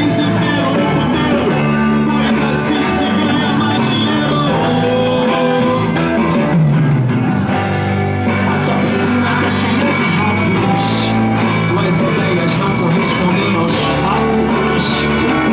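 Live rock band playing: electric guitars, electric bass and a drum kit, loud and continuous.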